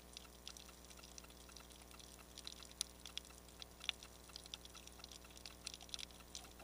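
Faint underwater crackle heard through a camera's waterproof housing: irregular sharp clicks and ticks, several a second, with two louder clicks about three and four seconds in, over a low steady hum.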